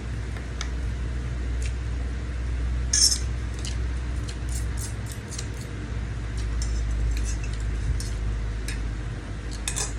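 Cutlery clicking and clinking against a dish during a meal of fried instant noodles: scattered short clicks, the sharpest about three seconds in, over a steady low hum.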